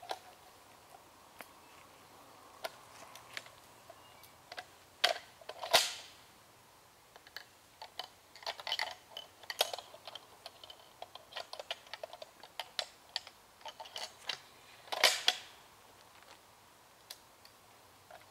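Irregular metallic clicks and clacks of a Barrett .50 BMG rifle being handled and readied to fire, with a few sharper knocks about five to six seconds in and again about fifteen seconds in.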